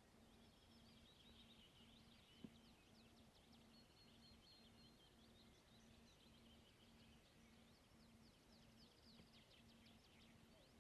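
Very faint outdoor ambience: many quick, high chirps from small birds throughout, over a faint pulsing low hum, with a single sharp click about two and a half seconds in.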